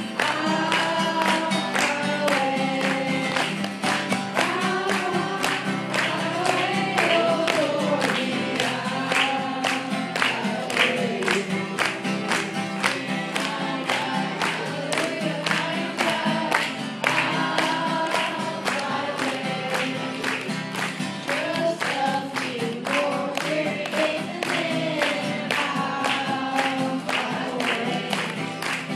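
A small group of boys singing a gospel song together, accompanied by a steadily strummed acoustic guitar.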